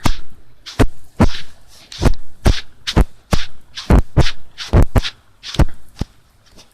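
A rapid, uneven series of sharp knocks and thumps right at the microphone, about two a second, growing fainter near the end.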